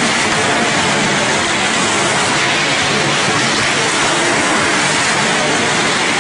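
A car engine running steadily as the car circles on the vertical wall of a wall-of-death pit.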